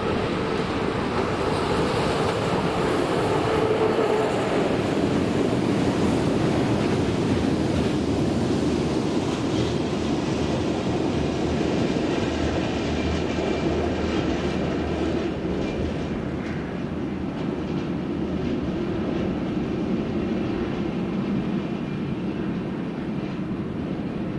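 Freight train of open wagons rolling past close by: a continuous heavy rumble and wheel clatter that eases slightly near the end.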